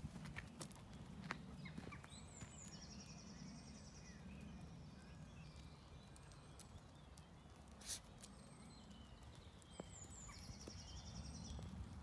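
Quiet footsteps scuffing and crunching on a gravel lane, with scattered clicks of stones, one sharper about two-thirds of the way through. A songbird twice sings a short phrase: a couple of high notes, then a fast trill about a second long.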